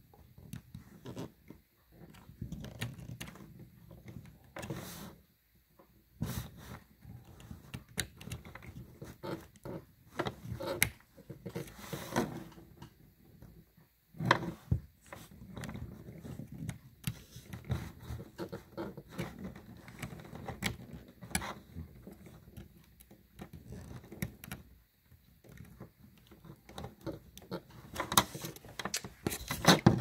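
Handling noise: irregular small clicks, knocks and rustles as a micro HDMI adapter plug and its cables are fumbled at a Raspberry Pi 4's micro HDMI port, with a few louder knocks.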